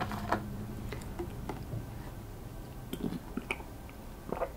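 Faint, scattered small clicks and ticks from handling a paperboard coconut water carton: its plastic screw cap twisted open, then fingers tapping and shifting the carton.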